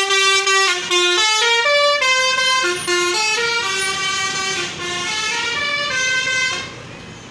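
A tour bus's multi-tone musical air horn (a 'telolet' horn) playing a melody of notes that step up and down, cutting off about six and a half seconds in.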